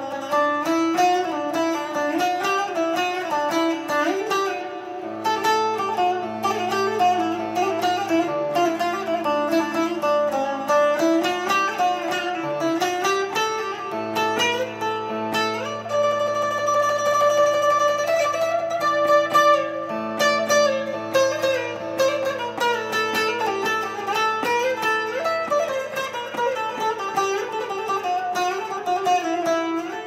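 Bağlama (long-necked Turkish saz) plucked in a quick, ornamented improvisation in the hicaz makam. Under the melody runs a sustained low drone that changes pitch a few times.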